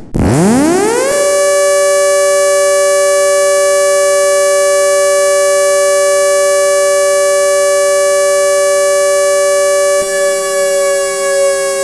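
Synthesized ACA Hurricane siren winding up fast within about a second to a steady two-note chord and holding it. About ten seconds in, the higher note begins slowly sagging as it starts to wind down.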